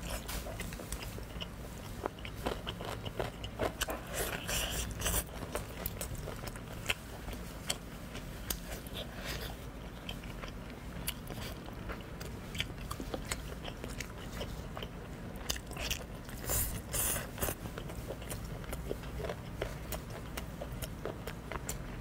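Close-miked eating sounds: braised meat torn apart by hand and chewed, with many short wet clicks and smacks.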